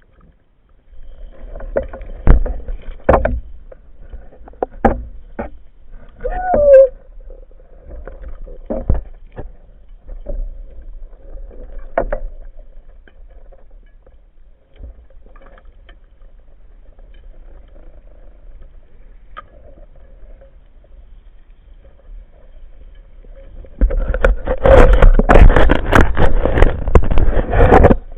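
Water sounds picked up by a diver's action camera: scattered sharp knocks and clicks over a low rumble, then a loud rush of water noise lasting about four seconds near the end.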